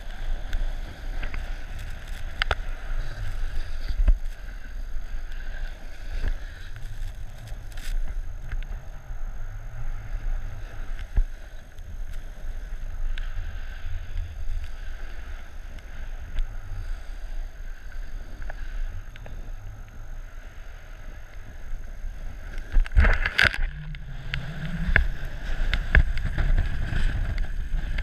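Wind rumbling on the microphone of a pole-held camera while snowboarding downhill, with the snowboard scraping over snow and occasional knocks. About 23 seconds in comes a louder burst of knocks and scraping.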